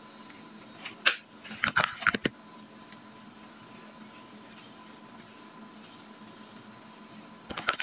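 Quiet room tone with a few sharp clicks and knocks, one about a second in and a quick cluster just after, then more starting near the end.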